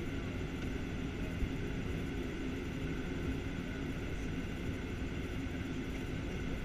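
Boeing 737-800's CFM56 jet engines at low taxi power, heard inside the passenger cabin: a steady, even hum with a few constant tones.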